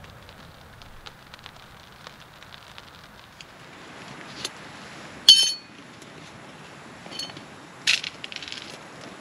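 Wood fire crackling softly in a small tent stove, with faint scattered ticks. Then small metal camp items clink as they are handled: one sharp ringing clink about halfway through, and lighter clinks and knocks near the end.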